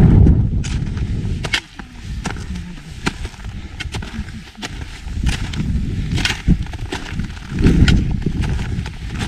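Footsteps crunching on snow, about one a second, over a low rumble of wind on the microphone.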